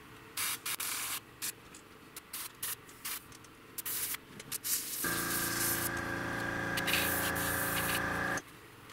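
Airbrush giving short bursts of spray hiss, then a steadier spray. About five seconds in, the airbrush air compressor starts up with a steady hum under the hiss and cuts off abruptly near the end.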